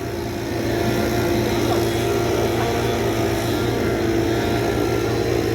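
Large farm machine's engine running steadily with a constant hum, getting slightly louder about half a second in as it comes closer.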